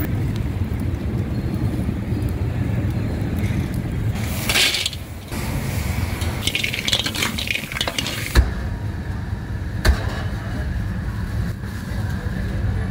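Busy street-market background with a steady low rumble. A brief hissing burst comes about four and a half seconds in, then wok stir-frying sizzles and scrapes for about a second, and two sharp knocks follow, about a second and a half apart.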